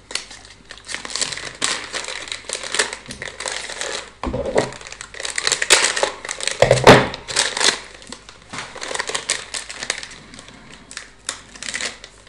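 Crinkling plastic wrapping being handled and opened, a dense run of crackles, with two dull thumps about four and seven seconds in.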